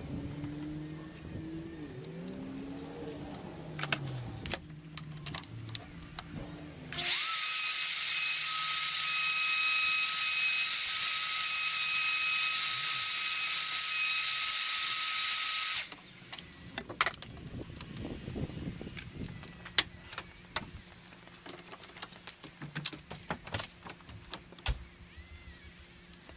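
Hand-held wood router running at full speed for about nine seconds, a loud steady hiss with a high whine, switched on suddenly about seven seconds in and cut off near sixteen seconds. Scattered clicks and handling knocks around it.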